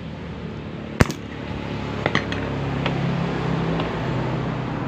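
Metal tools and parts clinking against a Kawasaki Barako 2 engine's open aluminium crankcase during disassembly. One sharp clink comes about a second in, then a few lighter clicks about two seconds in.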